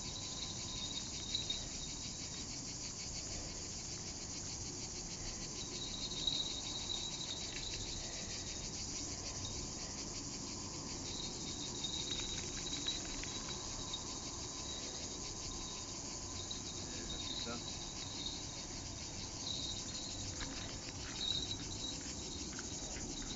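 A steady chorus of insects chirring, high-pitched with a fine, fast pulsing.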